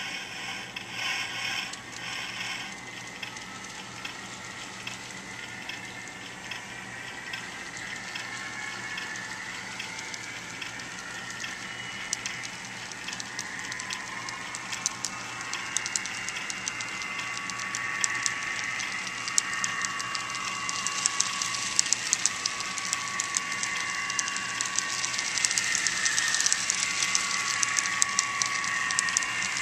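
Model freight train rolling over the layout's track, its wheels clicking rapidly over rail joints and turnouts, with a shifting squeal from the wheels. It grows steadily louder as the train approaches.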